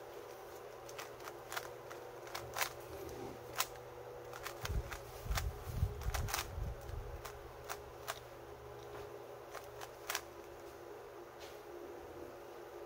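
Plastic 3×3 puzzle cube being turned by hand: irregular clicks as its layers are turned and snap into place. A cluster of dull, low knocks from handling comes between about five and seven seconds in.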